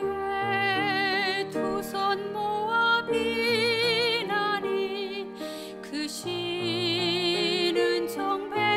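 Soprano singing a slow sacred song with wide vibrato on long held notes, over piano accompaniment, with short breaks between phrases.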